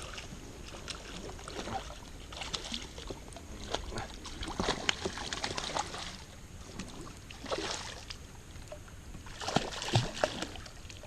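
Hooked tiger trout splashing and thrashing at the water's surface while being played on a fly rod, in several irregular bursts of sloshing.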